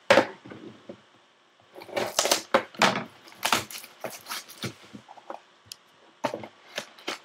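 A sealed trading-card box being torn open by hand: a sharp knock at the start, then bursts of ripping cardboard and crinkling wrapper.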